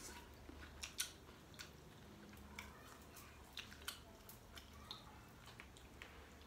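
Faint, irregular clicks and crackles of shellfish shells being cracked and peeled by hand, with some chewing.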